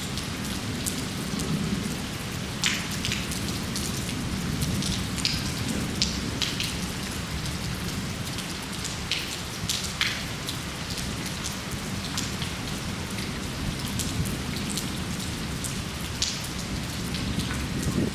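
Steady rain falling, with many separate close drops ticking sharply on a surface over an even hiss, and a low rumble underneath.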